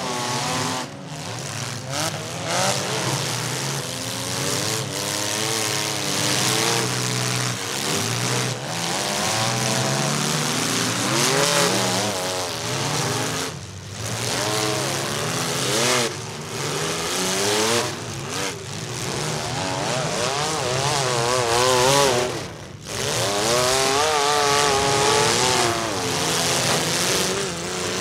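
Several demolition-derby compact cars' engines revving hard over and over, with loud exhaust, the pitch of each one rising and falling as they accelerate and back up.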